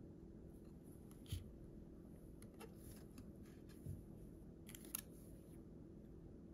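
Near silence, with three faint taps and rustles of trading cards being handled and turned over in the hands: about a second in, near four seconds and near five seconds.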